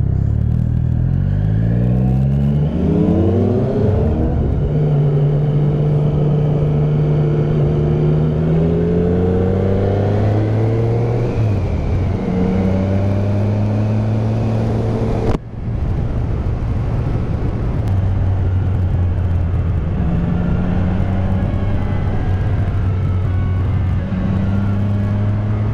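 Triumph Speed Triple 1050's inline-three engine with an Arrow exhaust, heard from the rider's seat under way: it pulls up through the revs at the start, then cruises with its pitch rising and falling as the throttle is opened and eased, over wind noise. The sound breaks off suddenly for an instant about halfway through.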